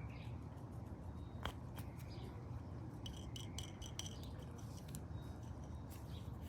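Faint clicks and light scraping from small parts being handled, over a low steady hum. These are a fuel injector and its tip seal being worked on by hand, with a cluster of quick clicks about three seconds in.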